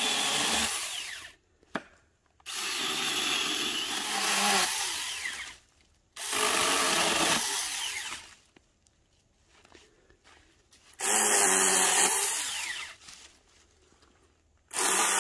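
Cordless 4-inch battery mini chainsaw running and cutting through small saplings and branches in short bursts of two to three seconds, with quiet pauses between bursts.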